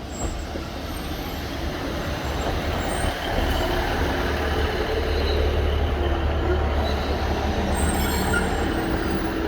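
Diesel passenger train running through the station with a low rumble that builds over the first few seconds and then holds steady, with faint high wheel squeals near the end.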